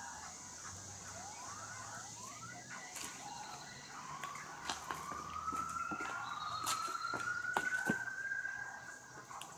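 A siren wailing: a few short rising sweeps, then one long, slow rise in pitch lasting about four seconds, with scattered sharp clicks over it.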